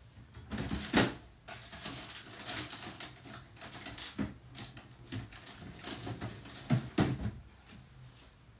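Irregular clatter and knocks of kitchen things being handled, with two sharper, louder knocks about a second in and about seven seconds in.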